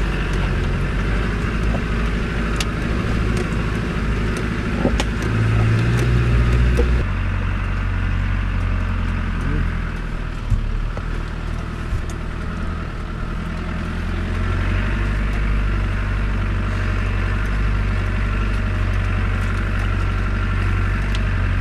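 Land Rover Discovery 200Tdi four-cylinder turbodiesel running steadily, heard from inside the cabin. For the first several seconds sharp knocks and rattles from the vehicle over a rough track sound through it. After that it settles into a smoother, even drone.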